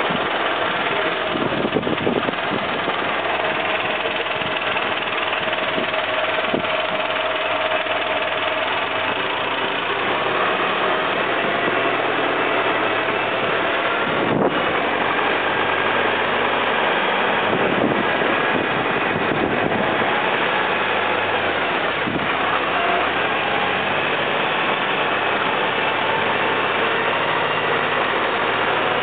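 Fiat tractor's diesel engine running steadily, heard up close.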